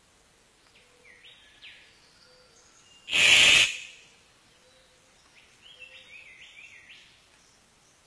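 Male riflebird, a bird of paradise, giving one loud, harsh rasping call about three seconds in, lasting about half a second. Faint short chirps come before and after it.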